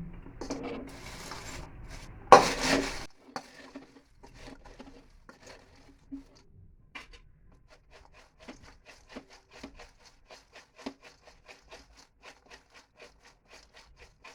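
Crisp fried corn snack mixture being stirred and tossed with its spices, the dry pieces rustling and scraping against the vessel. There is a loud knock about two seconds in. After that come quieter, regular stirring strokes, about two or three a second.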